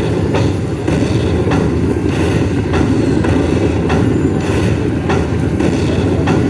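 Lightning Buffalo Link slot machine tallying its hold-and-spin bonus, a short sharp sound about twice a second as each prize value is collected, over a loud, steady rumble of casino din.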